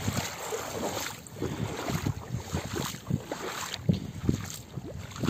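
Wind buffeting the microphone in uneven low rumbles, with a person's footsteps along the shoreline.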